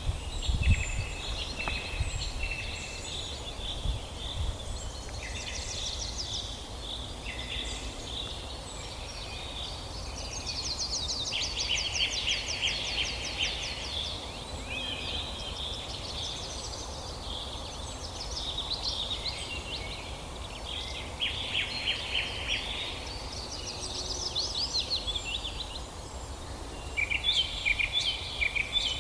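Several songbirds singing at once: a dense, overlapping chorus of chirps and rapid trills, over a steady low rumble, with a few low thumps in the first couple of seconds.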